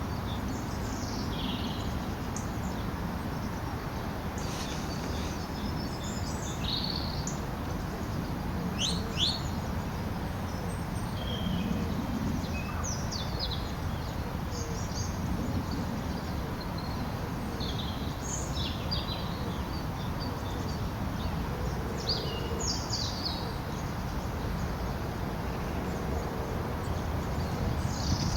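Small wild birds chirping and calling, short high notes now and then throughout, over a steady low background rumble.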